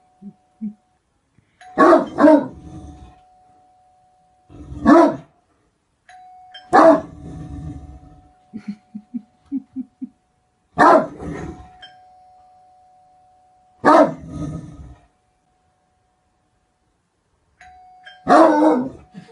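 Great Dane barking: deep single barks and quick pairs spaced a few seconds apart, with a faint steady tone in between. A quick run of short, low sounds comes near the middle.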